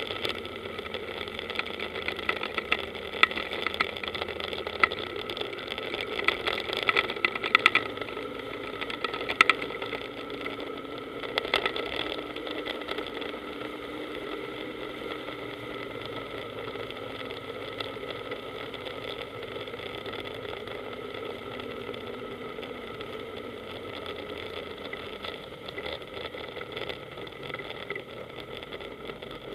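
Powerboat engine running steadily at low speed. Scattered knocks and rattles sound over it through about the first twelve seconds.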